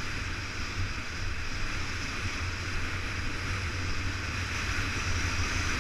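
Motorcycle engine running at a steady speed while riding, under heavy wind rush on the microphone.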